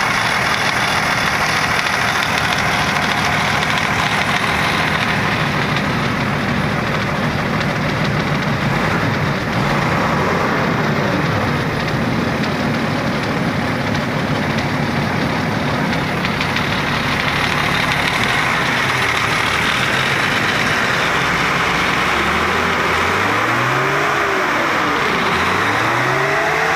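Mercedes-Benz OH 1518 bus's rear-mounted six-cylinder diesel engine idling steadily, then revved up twice near the end and dropping back to idle each time. Its throttle linkage, which had been sticking, has just been repaired and lubricated.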